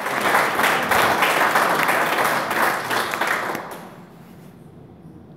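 Audience applauding, with many separate hand claps, dying away about four seconds in.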